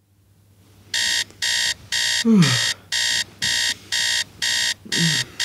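Alarm clock beeping: short, evenly spaced electronic beeps about two a second, starting about a second in. A person groans twice under the beeping, each groan falling in pitch.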